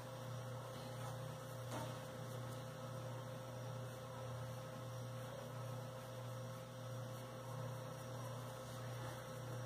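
Steady low electrical hum, with a fainter, higher steady tone above it.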